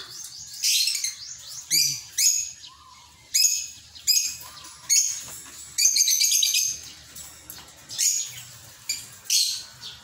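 Sun conures calling with short, high-pitched squawks, repeated about once a second.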